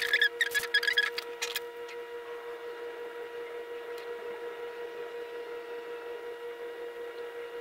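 A quick run of short squeaky chirps with small clicks in the first second and a half, then a steady, even hum at a fixed pitch.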